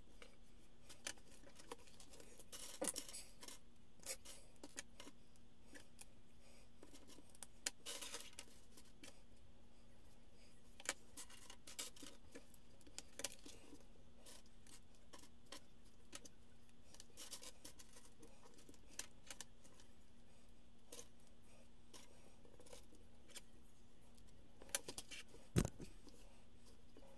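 Faint, scattered clicks and clatter of small plastic Lego bricks being picked out of a loose pile and snapped together, with small bursts of clicks about 3 and 8 seconds in and the loudest ones near the end.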